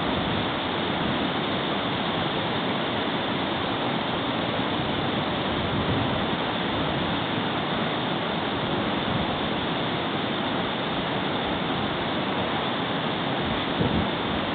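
Steady rushing of flowing river water, an even wash of noise with no breaks.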